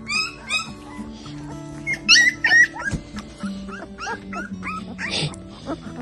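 Newborn husky puppies crying in high, squeaky whines, several overlapping and repeating, loudest about two seconds in; the owner takes them to be hungry and waiting to nurse.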